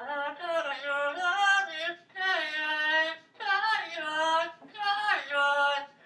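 Pet parrot singing opera-style in a human-like voice: four phrases of sliding, wavering pitch with short breaks between them.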